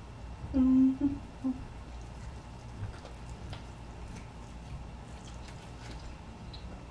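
A woman hums a pleased 'mmm' about half a second in, then a shorter one, followed by faint wet mouth sounds as she chews and sucks on a garlic-sauced chicken wing.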